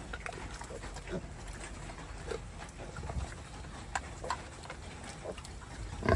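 Pigs, a sow and her piglets, making short scattered grunts and squeaks over a steady hiss. There is a louder sudden knock at the very end.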